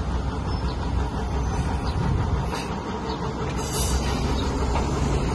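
A bus running, a steady low rumble of engine and road noise with a few faint clicks.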